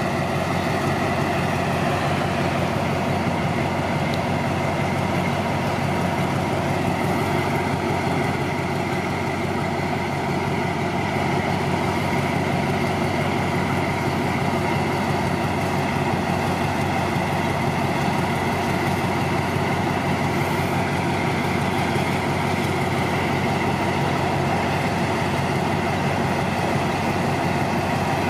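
Alsthom diesel-electric locomotive idling steadily while standing at the platform: a constant low engine drone with several steady hum tones that does not change.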